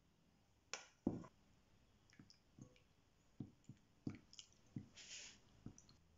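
A hand squeezing and mixing a wet flour-and-water dough in a glass bowl: a string of soft squelches and knocks, the loudest a deep knock about a second in. About five seconds in comes a brief rustle as flour is tipped in from a spoon.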